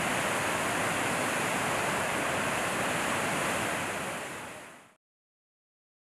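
A swollen, muddy river rushing over rocks in a steady torrent. It fades out about four seconds in and then goes silent.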